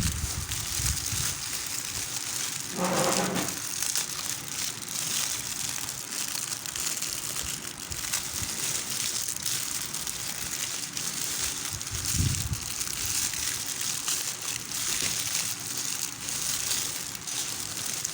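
Plastic packaging crinkling and crackling as it is handled and opened, with many small clicks over a steady hiss.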